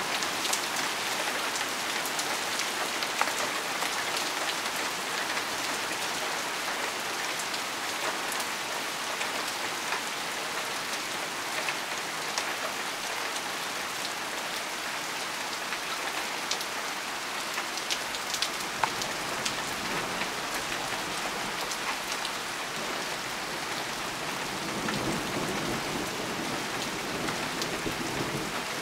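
Heavy downpour: a steady, dense hiss of rain pelting pavement, parked cars and leaves, with scattered sharp taps of single drops striking close by.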